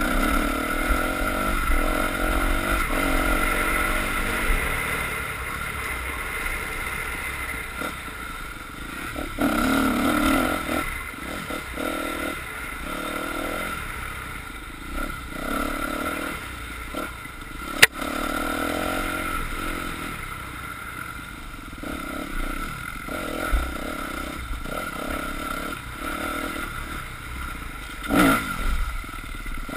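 Dirt bike engine running under throttle, rising and falling in loudness as the bike is ridden along a rough trail. A single sharp click stands out a little past halfway.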